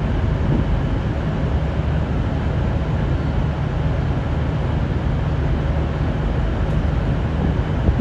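V/Line VLocity diesel multiple unit's diesel engines running steadily with a low rumble.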